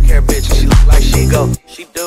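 Hip hop track with a heavy bass and a steady drum beat; it cuts off abruptly about one and a half seconds in.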